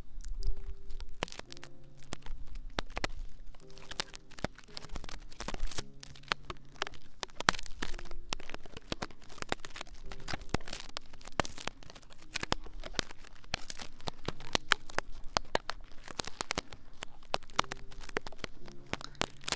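Fingers rubbing and scratching on the silicone ears of a binaural ASMR microphone, a close, dense stream of crackles and rustles.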